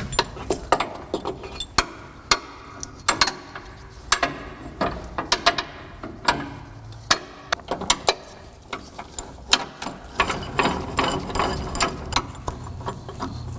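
Metal clinks and clicks of a coil spring compressor's plates and threaded rod being fitted up inside the front coil spring of a GMT400 Chevy truck. The clicks come irregularly, then quicken into a denser run of clicking near the end.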